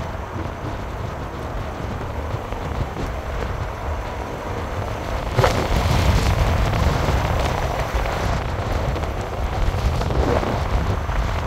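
Wind buffeting the microphone outdoors: a steady low rumble that gusts louder about halfway through.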